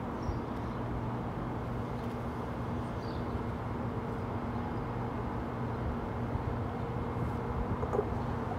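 Steady low hum over outdoor background noise, with no train passing.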